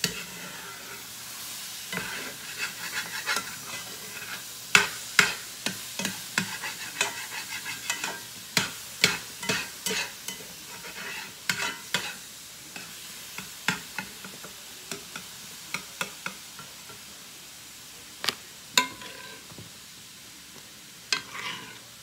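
Utensil scraping and stirring squash and onions frying in a cast iron skillet: irregular scrapes and clicks against the pan over a steady sizzle. The strokes come thick at first and grow sparser in the second half.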